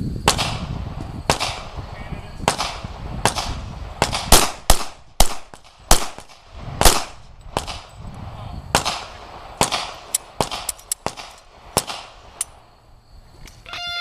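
Glock 22 pistol in .40 S&W firing a string of about two dozen shots at an uneven pace, some in quick pairs, each with a short echo; some shots are fainter than others. The firing stops near the end.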